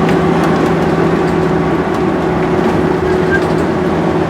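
Steady road and engine noise inside a vehicle cruising on the highway: an even rush of tyre and wind noise with a constant low hum running under it.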